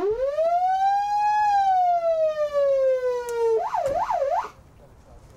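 Ambulance siren: one long wail that rises for about a second and a half and then slowly falls, followed by two quick yelp sweeps, then it cuts off about four and a half seconds in.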